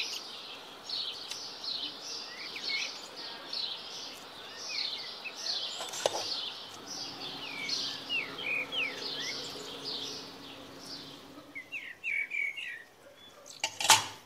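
Many small birds chirping and twittering continuously in the background, with a faint steady hum underneath. There is a sharp click about six seconds in and another near the end.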